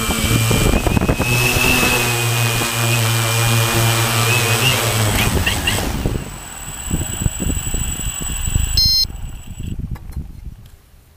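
Quadcopter drone's propellers whirring with a steady hum and a high wavering whine, which drop away about six seconds in as it lands on the road. Gusty wind noise follows, with a short electronic beep near nine seconds, and then it goes quiet.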